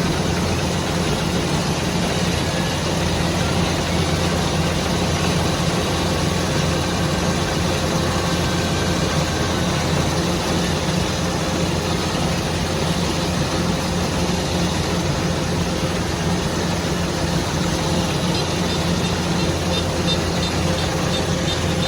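Rice harvesting machine running steadily: a constant low engine drone under an even mechanical rush.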